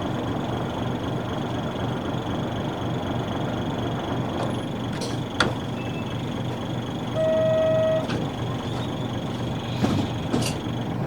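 Isuzu PF6 diesel engine of a bus running at a steady, even note. About seven seconds in there is a single electronic beep lasting under a second, and a few sharp clicks around it.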